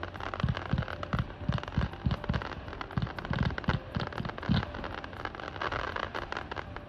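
Aerial fireworks going off in a rapid barrage: deep booms about three a second, layered with crackling bursts.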